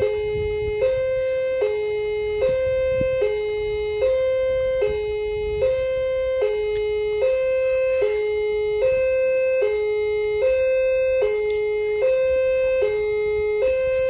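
Railway level-crossing warning alarm sounding a steady electronic two-tone, alternating high and low about every 0.8 s as a train approaches.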